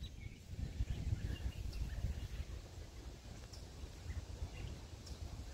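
Quiet outdoor ambience: a low, uneven rumble with a few faint, short bird chirps scattered through it.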